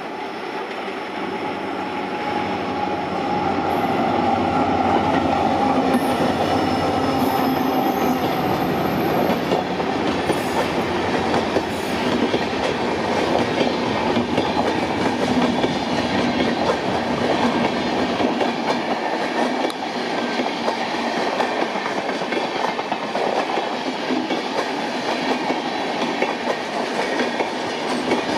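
EMD diesel locomotive hauling a passenger train past at speed, its sound growing louder over the first few seconds, then a steady clickety-clack of the coaches' wheels over the rail joints as the train rolls by.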